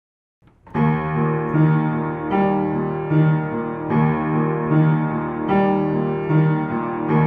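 Piano playing a slow, gentle piece, with evenly paced notes over held chords. It starts about three-quarters of a second in, after a moment of silence.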